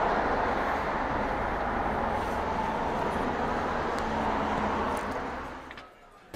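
Steady road traffic noise, an even rushing rumble, fading out about five seconds in.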